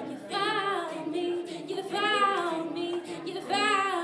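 An a cappella group singing live: a female lead voice sings three sustained, wavering phrases over backing voices holding a steady note.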